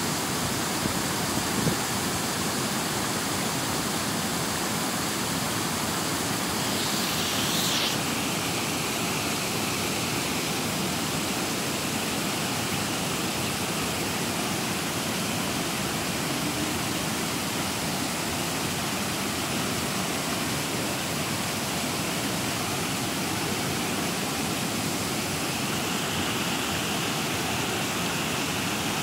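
Shallow stream water rushing and splashing over a stony bed, a steady rush of water noise that swells briefly about seven seconds in.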